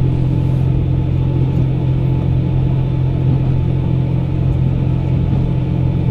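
Cabin sound of a KiHa 120 diesel railcar under way: a steady low engine drone with a constant hum over the rumble of the wheels on the track.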